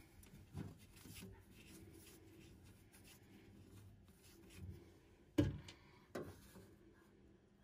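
Faint handling sounds of fingers rubbing against a boiler's metal expansion vessel and its bracket. A few light knocks come through, the sharpest about five and a half seconds in and another just after six seconds.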